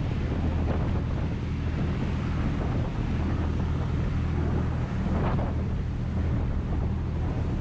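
Motorboat engine running steadily with a low hum, under wind buffeting the microphone and the rush of the churning wake. There is a brief louder rush about five seconds in.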